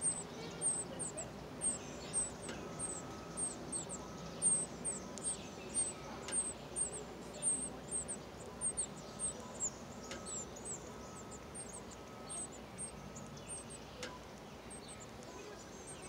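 Nestling northern cardinals begging: rapid, very high, thin chirps, two or three a second, growing sparser near the end.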